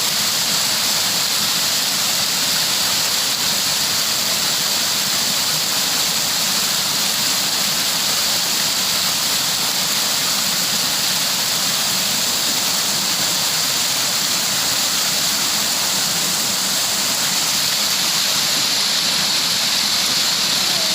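Rushing water, such as a waterfall or fast stream, making a steady, unbroken hiss.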